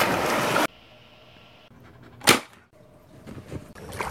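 A working cocker spaniel splashing as it swims, in the first second. A single sharp bang comes about two seconds in, and splashing water sounds again near the end.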